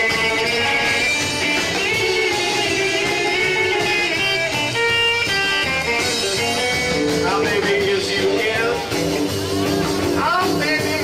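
Live rock and roll band playing, with electric guitar and saxophone.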